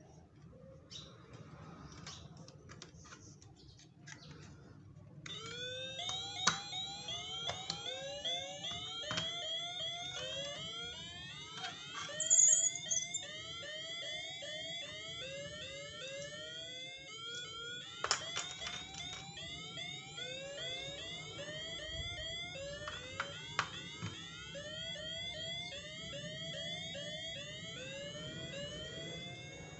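A battery-powered toy train's electronic sound chip playing a fast repeating run of short rising electronic chirps, starting about five seconds in, with a few sharp plastic clicks and knocks among them. Before that, only light plastic clicking.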